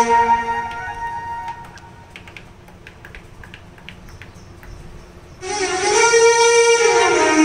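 Yamaha PSR-S670 arranger keyboard sounding one of its demo voices. A held note fades out over about two seconds, a quiet stretch with faint clicks follows, and about five and a half seconds in a new bright held note begins and slides down in pitch near the end.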